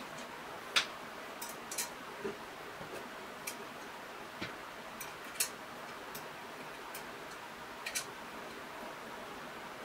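Irregular light metallic clicks and taps, about ten in all, from an angle grinder body and its steel angle brackets being handled and adjusted against a stainless steel pot, over a faint steady hiss.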